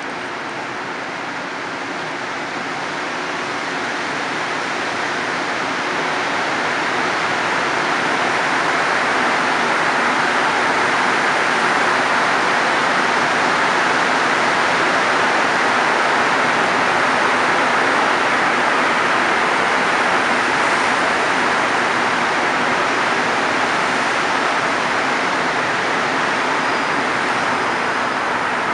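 Rubber-tyred Montreal Metro train entering the station from the tunnel and rolling past along the platform: a steady rushing roll noise that grows louder over the first ten seconds or so, then holds.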